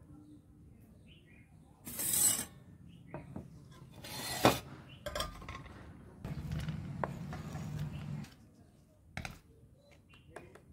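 Stainless steel colander and dishes clinking and knocking against the table in a few separate knocks, with a steady scraping stretch partway through as cubed paneer is slid off a plastic chopping board into the colander. Faint bird chirps in the pauses.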